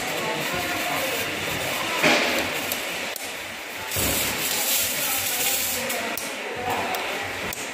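Rubbing and scraping as hands work the locking clamp onto the rubber boot at the end of a car's rack-and-pinion steering rack, with louder scrapes about two and four seconds in.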